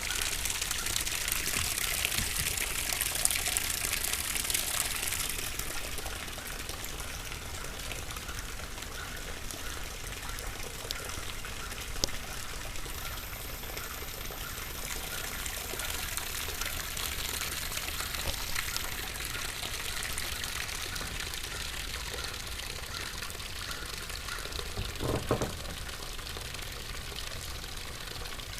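Steady rain falling, an even hiss that is a little louder for the first few seconds, with a single sharp click about twelve seconds in and a short dull thump near the end.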